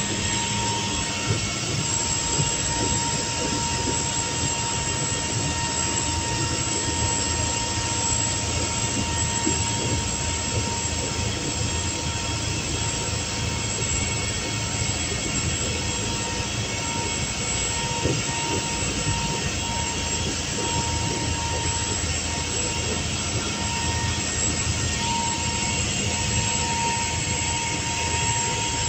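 Motor yacht's engines running steadily under way, heard from the enclosed helm: an even drone with a faint high whine over it.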